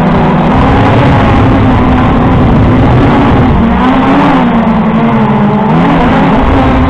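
Quadcopter drone's electric motors and propellers buzzing loudly, heard from the drone's own onboard camera, the pitch wavering and bending up and down as it manoeuvres.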